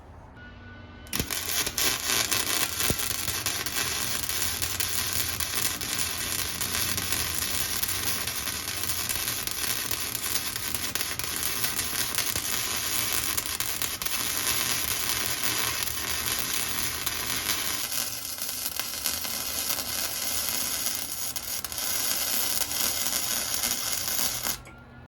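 A steady, loud hissing rush that starts suddenly about a second in and cuts off abruptly near the end, its tone shifting a little about three-quarters of the way through.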